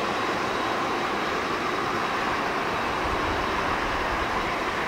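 Boeing 747-400 freighter's four jet engines running at taxi power: a steady rumble with a thin, high whine.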